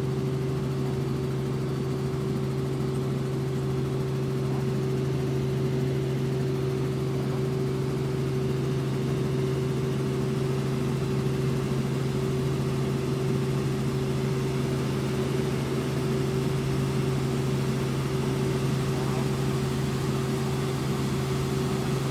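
Light helicopter's cabin noise in cruise flight: a steady, unchanging drone of engine and rotors with a strong low hum.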